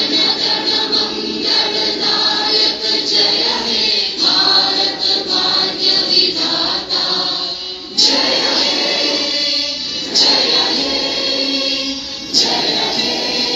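A large group of schoolchildren singing a song together in unison. New phrases start afresh several times in the second half.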